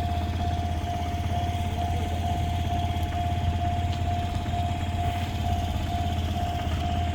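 Japanese level-crossing warning bell ringing, a single electronic tone repeating evenly about one and a half times a second, over a steady low rumble.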